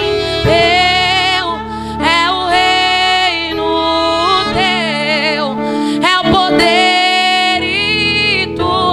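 A woman singing a slow worship song into a microphone, with long held notes and vibrato, over a steady sustained instrumental backing.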